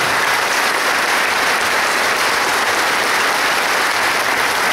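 A congregation applauding steadily: many hands clapping at once, some close by.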